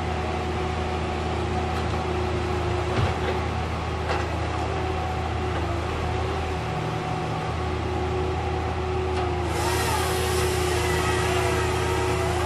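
Barko 595ML knuckleboom loader and CSI DL 4400 slasher saw running steadily: a low engine drone with a steady higher whine over it. Two short knocks come about three and four seconds in, and a louder hissing rush joins about two-thirds of the way through.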